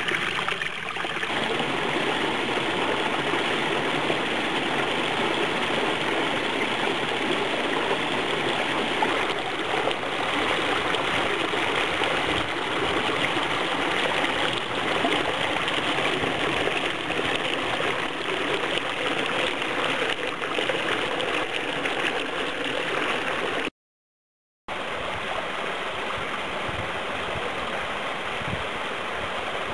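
Mountain stream water rushing and splashing over rocks in small cascades, a steady, even sound. It drops out completely for about a second some three quarters of the way through, then comes back slightly quieter.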